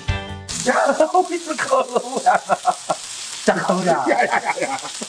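Pieces of crocodile meat sizzling as they fry on a large flat griddle.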